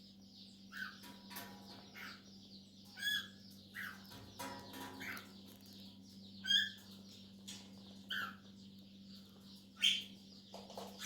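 Cockatiels chirping: about eight short, sharp calls over a continuous high-pitched chatter, with a steady low electrical hum beneath.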